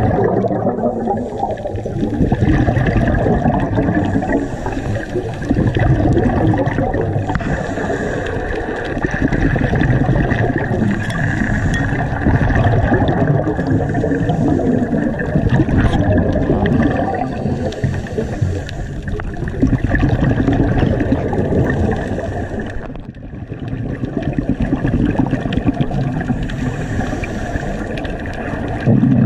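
Scuba regulator breathing heard underwater: the rush and gurgle of exhaled bubbles coming in surges every few seconds, with a brief lull about two-thirds of the way through.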